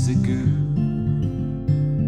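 Acoustic guitar playing the accompaniment of a folk song, notes changing every half second or so, with the tail of a male singer's sung line fading out in the first half second.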